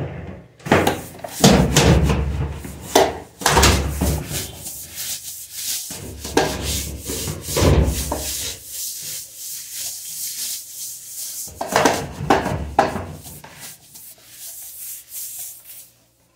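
Stiff-bristled floor brush scrubbing a wet tiled floor in rapid back-and-forth strokes, some strokes much louder and heavier than others; the scrubbing stops just before the end.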